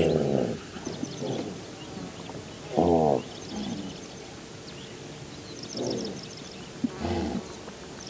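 Gazelle calling: about half a dozen short, low calls, each under half a second, the loudest at the start and about three seconds in.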